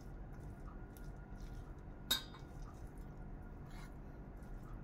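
A metal spoon scraping and tapping inside a small ceramic bowl as cooked sticky glutinous rice is pressed into it, with one sharp clink about two seconds in.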